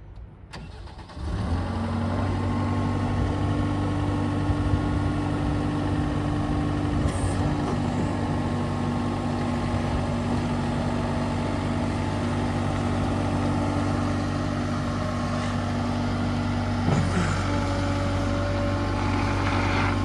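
A Case SV300 skid steer loader's 90 hp diesel engine starts about a second in and then runs steadily. Near the end its note changes as the loader arms lift the bucket.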